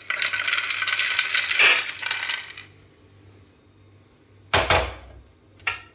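Roasted makhana (fox nuts) rattling and tumbling out of a metal pan onto a ceramic plate for about two and a half seconds, then two knocks about a second apart, the first a heavier thud.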